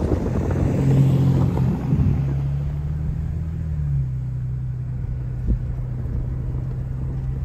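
Toyota Tacoma pickup driving on a dirt road: a steady low engine drone with road rumble, rougher for the first couple of seconds, dipping slightly in pitch about four seconds in.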